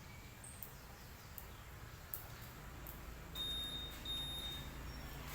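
Two high, steady electronic beeps, each about half a second long, a little past the middle, over a low background hum.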